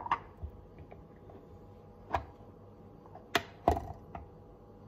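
Kitchen things being handled, a glass jar among them: a handful of short, sharp knocks and clicks, the two loudest close together about three and a half seconds in.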